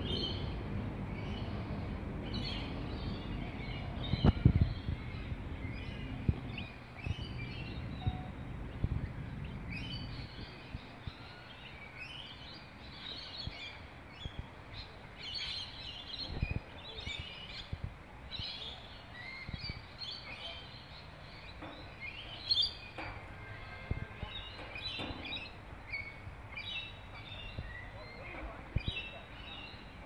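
Birds calling in short, repeated chirps scattered throughout. A low rumble lies underneath for the first ten seconds, and a few sharp knocks come about four seconds in.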